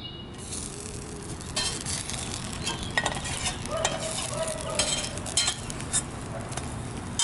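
Pancake batter sizzling and crackling in a frying pan set over a campfire, the crackles thickening about a second and a half in; the pan is running way too hot.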